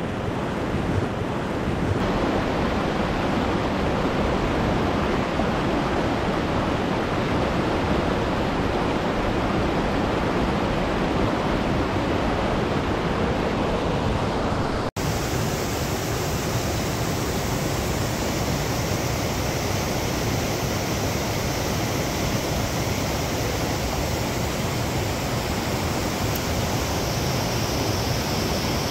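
A mountain creek rushing steadily over rocks and small cascades. About halfway through it cuts out for an instant and comes back brighter and hissier.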